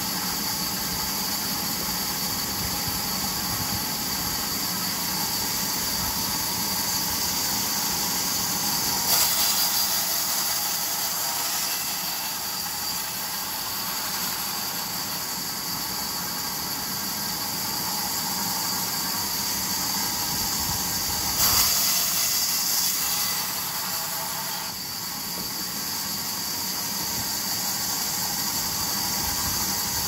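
Large vertical band saw running and cutting lengthwise through a raw log: a steady, high-pitched hiss of blade and sawdust, briefly louder about a third of the way in and again about two-thirds through.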